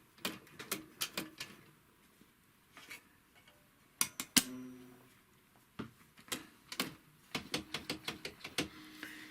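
Scattered sharp clicks and knocks of metal parts and tools being handled on an industrial sewing machine during oiling. A louder double knock about four seconds in rings briefly, and a quick run of small clicks comes near the end.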